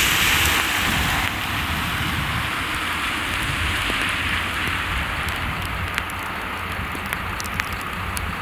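Steady rain hiss mixed with car tyres swishing past on a wet road, loudest in the first second or so; a few sharp raindrop ticks in the second half.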